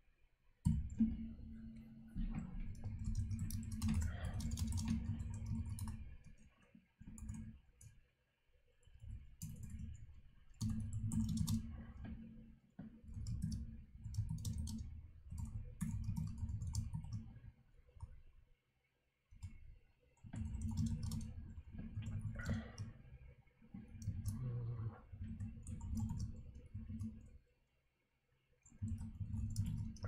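Typing on a computer keyboard: runs of keystrokes a few seconds long, with clicks and dull thuds, broken by short pauses.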